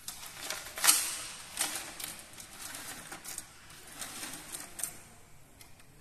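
A yellow-crested cockatoo shifting about on a wooden tabletop, its claws and the metal chain on its leg clicking and rattling against the surface. About ten sharp ticks come at uneven spacing, the loudest about a second in.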